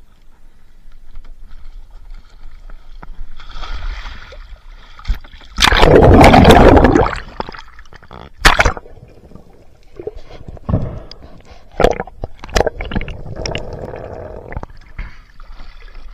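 A loud splash for about a second and a half as a spearfisherman goes into the sea beside a small wooden boat. After it comes water sloshing and gurgling around the camera at the surface, with a few sharp knocks.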